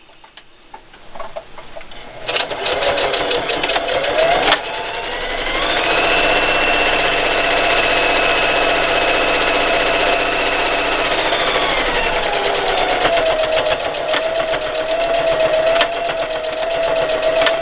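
Electric sewing machine straight-stitching: motor whine over fast needle clatter. It starts a couple of seconds in with slower stitches, speeds up with a rising whine, runs fast and steady, then slows with a falling whine and keeps sewing at a lower speed.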